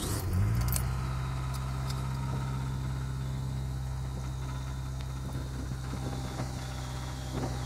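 Ford Ranger's 2.3-litre dual-plug four-cylinder engine idling steadily just after a cold start at 8 degrees, heard from inside the cab. The owner calls the engine pretty worn out, knocking, ticking and burning oil.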